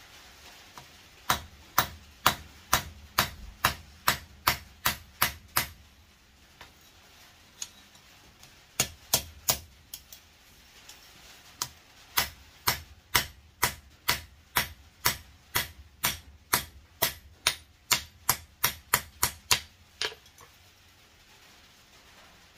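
Hammer striking a rivet on a pair of small tongs against an anvil, peening the rivet head: sharp metallic blows about two a second, in two long runs with a few scattered strikes between, stopping about twenty seconds in.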